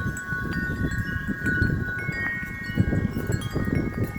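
Wind chimes ringing in strong wind: several clear tones struck over and over and left to ring, over a gusty low rumble of wind on the microphone.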